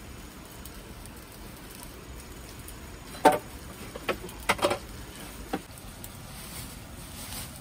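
A handful of sharp knocks or taps over about two seconds, the first the loudest, over a steady background hiss.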